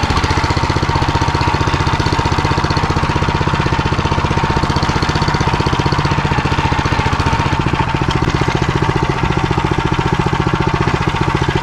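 Walk-behind tractor's small single-cylinder engine running steadily under load as the machine drives along, with a fast, even beat. The engine is warmed up, but the cold transmission is still turning stiffly.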